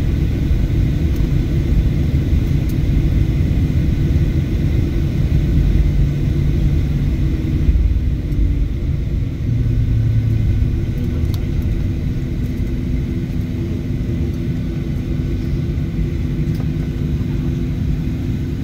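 Steady low rumble inside the cabin of a Boeing airliner taxiing after landing, its jet engines at idle, with a faint steady hum over it.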